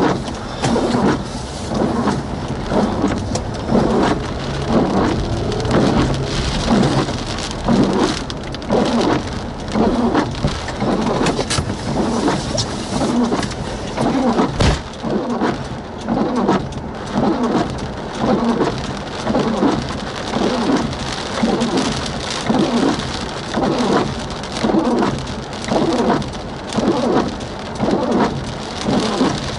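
Steady rain falling on and around a vehicle in a thunderstorm, swelling in a regular pulse about once a second. A single sharp thump comes about fifteen seconds in.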